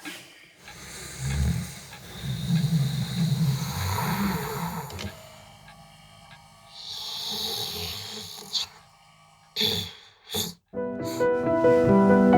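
A person snoring: a long, rough, rattling snore on the in-breath, followed by a softer breath out. Near the end a few short clicks, then piano music begins.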